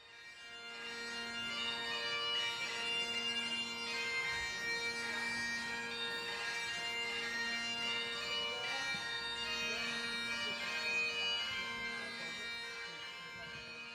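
Scottish bagpipes playing a melody over steady drones, fading in at the start and easing down near the end.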